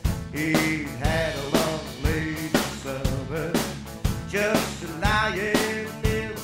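Up-tempo rock-and-roll band music: a drum-kit beat of about two hits a second under electric guitars and a bending lead melody line.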